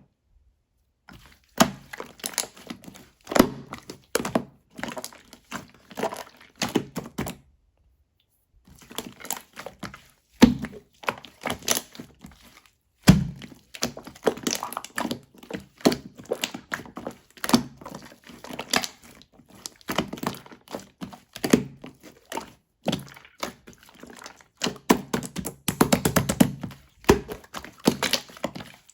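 Slime being mixed and pressed by hand, giving irregular sticky pops, clicks and soft thunks, with two brief pauses.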